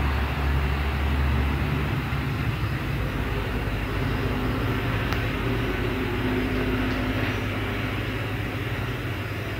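A cat purring close to the microphone while nursing kittens: a steady low rumble with a fine, fast pulse, heaviest in the first couple of seconds.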